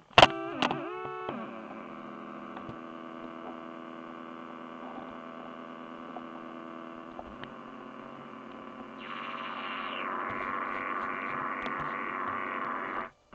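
Electronic drone: a dense chord of held tones humming steadily after a brief sliding-pitch opening. About nine seconds in, a harsher pulsing hiss joins on top. It cuts off suddenly near the end.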